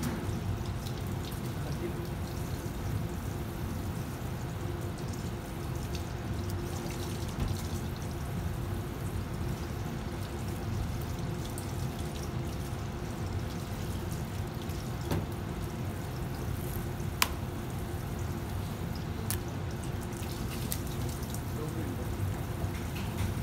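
Steady kitchen background hum and hiss, with a few light, sharp clicks and taps as a knife skins and trims sea bream fillets on a plastic cutting board.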